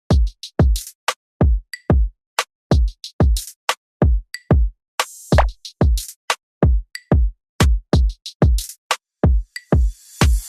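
Background hip hop music: a drum-machine beat with deep 808 kicks that slide down in pitch, about two a second, and sharp claps and hi-hats between them, no vocals.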